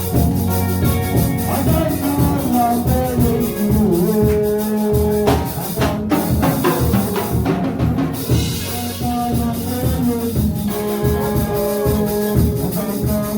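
Upbeat live church music with drums, shakers and keyboard keeping a steady beat, and some singing.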